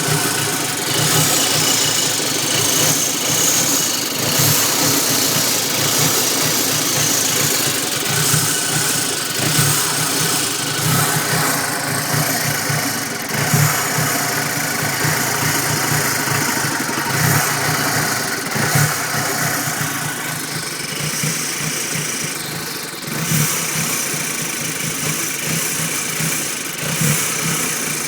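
2006 Audi A4 2.0T's turbocharged four-cylinder engine idling roughly, its low running uneven, with a steady hiss over it. The rough idle comes from a large vacuum leak at a faulty intake manifold gasket.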